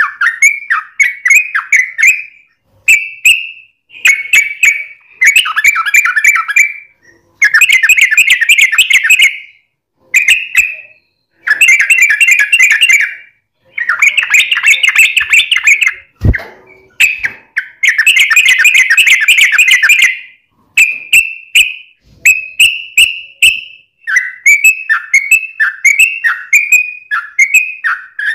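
Yellow-vented bulbul (trucukan) singing: phrase after phrase of rapid runs of notes, each lasting one to three seconds, with short pauses between them.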